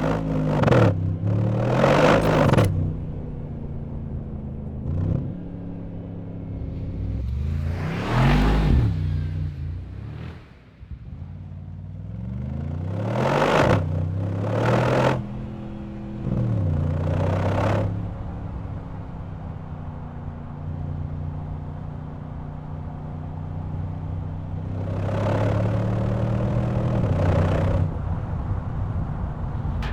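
Mercedes-AMG G 63's 4.0-litre twin-turbo V8 revving and accelerating in repeated loud surges, its pitch climbing and dropping several times. Between surges it settles into a steadier run before climbing again near the end.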